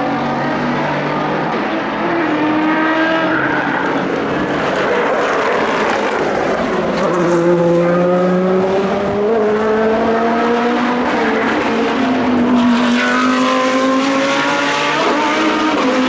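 Several high-performance car engines running on a race circuit at once, overlapping, their pitch climbing under acceleration and dropping back at gear changes, again and again.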